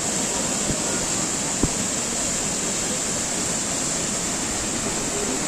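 Waterfall pouring down a hillside: a steady, even rush of falling water, with a brief knock about a second and a half in.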